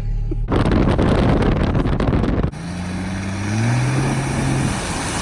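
1991 Jeep's engine running on the move. A loud rushing noise comes in abruptly for about two seconds, then the engine's pitch rises as it accelerates and levels off.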